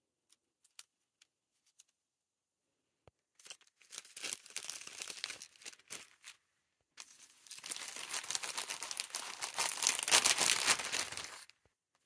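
Clear plastic cellophane sleeve crinkling as hands handle it, in two stretches of crackling; the second is longer and louder.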